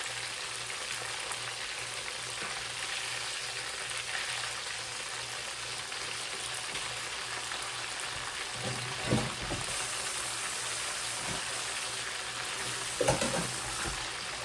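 Breaded chicken cutlets sizzling steadily as they shallow-fry in hot oil in a pan, with a couple of short knocks a little past the middle and again near the end.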